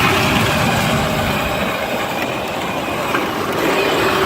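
Power Wheels Jeep's electric drive motors and plastic gearboxes running at full throttle on an 18-volt battery, a steady whine with the bare plastic wheels spinning and sliding on slippery ground.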